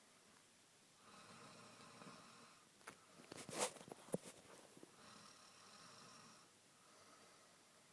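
A man snoring softly in his sleep, in slow breaths about four seconds apart. A short, louder burst of noise with a couple of sharp clicks comes about three and a half seconds in.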